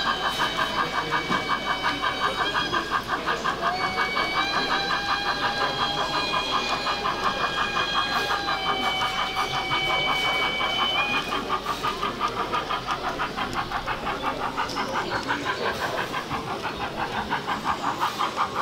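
TT-scale model steam locomotive hauling a train of freight wagons along the track: a fast, even pulsing, with steady high whining tones that step in pitch a few times.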